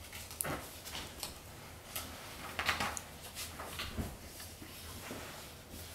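Soft rustles and small knocks of a large picture book being handled and turned around, with a longer rustle about two and a half seconds in.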